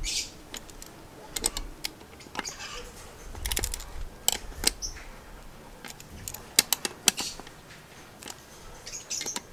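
Ratchet and socket clicking in short irregular bursts as the concentric slave cylinder's mounting bolts are run down and drawn onto its seal, with light metal tool knocks between.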